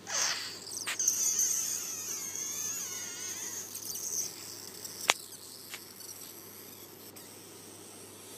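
A weird high-pitched squeaky, warbling sound for about four seconds, then a sharp click about five seconds in.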